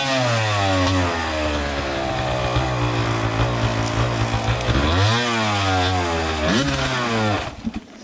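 Enduro dirt bike engine revving up and down several times as the rider tries to get moving. Its pitch drops off, holds lower, then rises twice in quick bursts before the sound cuts off suddenly near the end.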